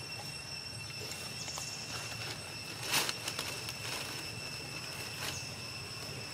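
Outdoor background of a steady high-pitched whine and low hum, with a few soft clicks and rustles; one sharper click about three seconds in.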